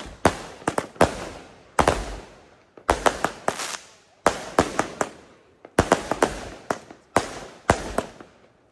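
A 500-gram consumer firework cake firing shot after shot: sharp bangs come in quick clusters about once a second, each fading off.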